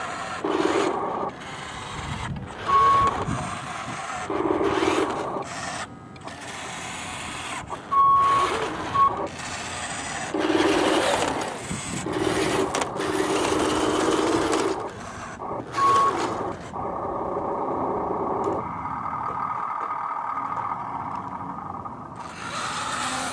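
Radio-controlled scale Volvo A40G dump truck driving over gravel in stops and starts. Short high beeps sound a few times, like a reversing alarm.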